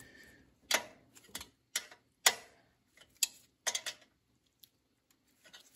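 Steel wrenches clicking against the belt adjuster bolt and lock nut as the lock nut is tightened. About seven sharp, irregularly spaced metallic clicks in the first four seconds, then almost nothing.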